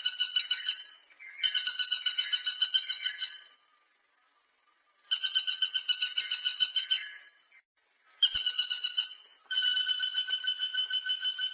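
Woodpecker calling in repeated rattling series of quick, high, even notes, several bouts of one to two seconds with short pauses between.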